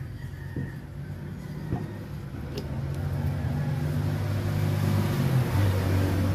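An engine running, a low steady hum that grows louder over the last few seconds. A few light metallic clicks come early on.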